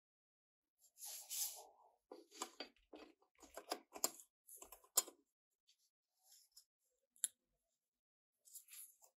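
Small scale model car parts handled and fitted together by gloved hands: scattered clicks and scratchy scraping of the painted parts against each other, busiest in the first half, with a single sharp click later on.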